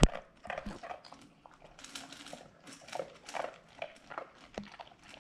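Golden Retriever puppy munching dry dog food from a stainless steel bowl: irregular crunches of chewing, with a sharp knock right at the start and another about four and a half seconds in.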